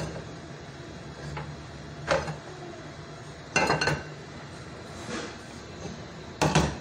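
A few sharp knocks and clinks of a utensil against a metal frying pan holding oil, the middle one a quick cluster and the last the loudest, over a low steady hum.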